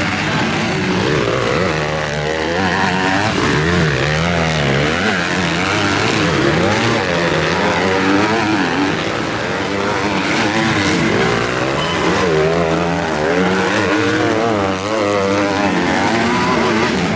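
Several motocross dirt bikes racing past one after another, their engines revving up and down over and over through a corner.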